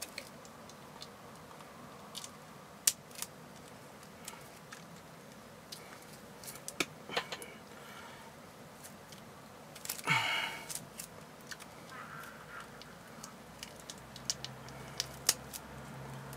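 Hands picking at the plastic shrink wrap on a sealed deck of game cards, which won't come open. There are scattered small clicks and scratches, with a brief crinkle of plastic about ten seconds in.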